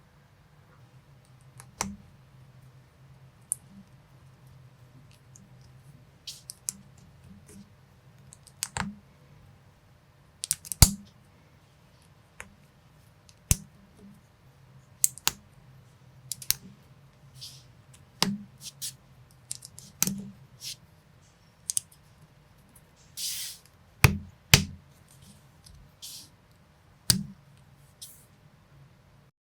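Small LEGO-compatible plastic minifigure pieces being handled and pressed together, making irregular sharp clicks and snaps about once a second. One brief scraping rustle of parts comes late on.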